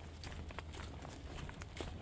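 A hiker's footsteps on a trail: irregular, sharp crackling steps over a steady low rumble.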